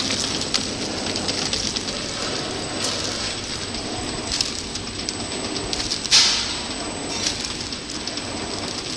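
Horizontal flow-wrapping (pillow packing) machine running: a steady mechanical whirr and hiss with sharp clicks about once a second, the loudest about six seconds in.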